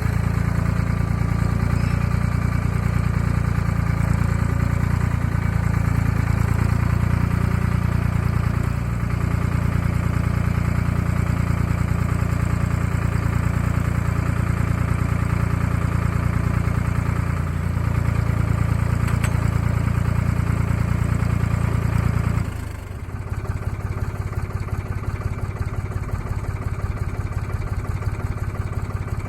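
Engine of a Wood-Mizer LT10 portable band sawmill running steadily. About 22 seconds in its sound drops to a lower, lighter running level.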